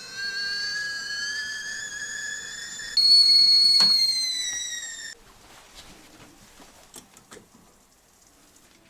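A high whistling tone with overtones, slowly rising in pitch, jumps higher and louder about three seconds in, then cuts off suddenly a couple of seconds later. Faint scattered ticks and drips follow.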